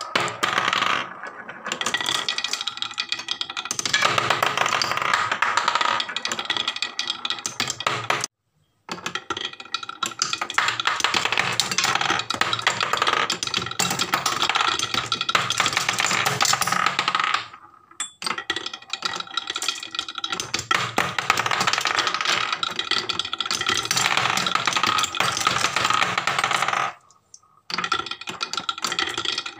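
Glass marbles rolling and clattering down a HABA wooden marble run's zigzag slopes: a dense, continuous run of wooden clacks and rattles. It breaks off briefly three times, about 8, 17 and 27 seconds in.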